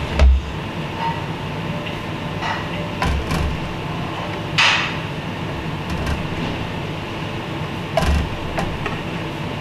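A few separate knocks and scrapes over a steady machine hum. The first, near the start, comes as a scraper clears excess chocolate off a chocolate mould on a stainless-steel bench.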